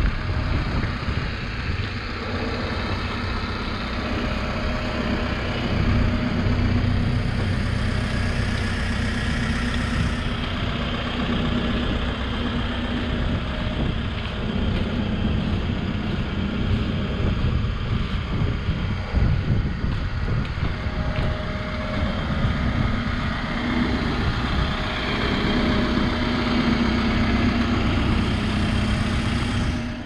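2013 Case 580N backhoe loader's four-cylinder diesel engine idling steadily.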